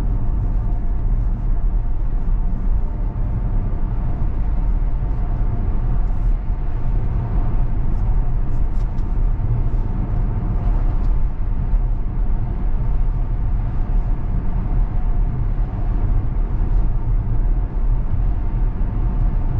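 Steady low road and tyre rumble heard inside the cabin of a Tesla Model X electric car driving along, with a few faint ticks in the middle.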